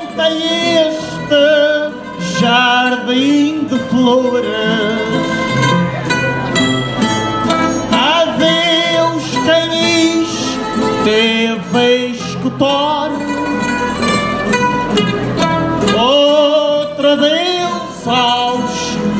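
A male voice singing a Portuguese cantoria verse, accompanied by a string ensemble of plucked guitars and mandolins.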